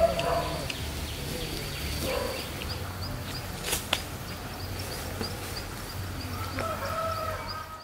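Countryside ambience: a high, thin chirp repeating about three times a second, with a few other short animal calls and a sharp click a little past the middle.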